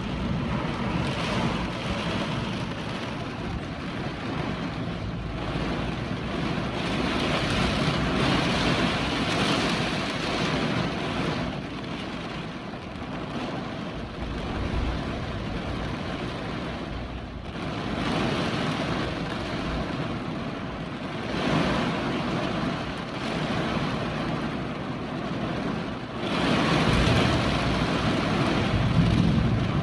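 Hurricane wind gusting hard over the microphone, a loud rushing noise that swells and eases in surges, strongest near the end.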